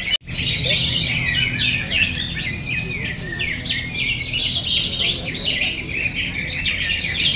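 Cucak ijo (leafbird) singing a fast, unbroken stream of varied chattering and whistled notes, as used for competition training and to spur other birds into song. The song drops out for an instant just after the start.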